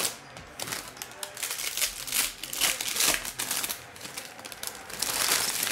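Foil trading-card pack wrappers (2023 Panini Prizm Baseball) crinkling as packs are torn open by hand and the wrappers crumpled, in irregular crackles that are loudest near the end.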